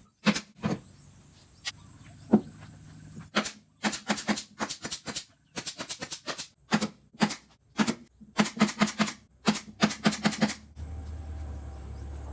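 Quick bursts of sharp knocks, several a second, separated by short pauses. A low steady hum comes in near the end.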